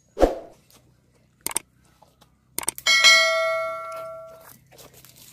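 Subscribe-button animation sound effect: a few quick clicks about two and a half seconds in, then a bright bell ding that rings and fades over about a second and a half. A dull thump comes just after the start.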